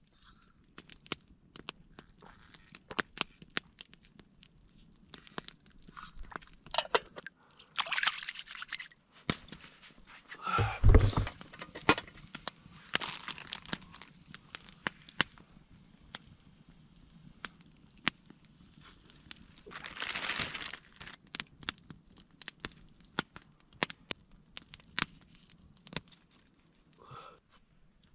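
Campfire crackling with scattered sharp pops, among a few brief bursts of rustling and handling noise from camp cooking.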